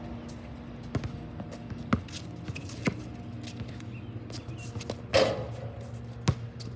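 A basketball bouncing on an outdoor hard court about once a second. A louder impact comes a little after five seconds in, as the jump shot reaches the hoop. A steady low hum runs underneath.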